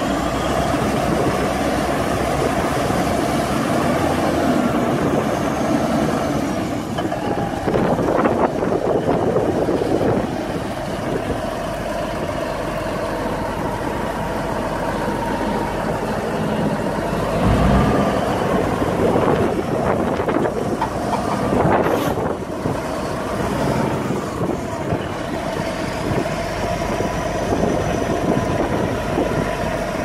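Komatsu D375A crawler bulldozer's diesel engine running steadily under load while its blade pushes soil, with the rough rumble of the tracks and earth. A single sharp knock comes about three-quarters of the way through.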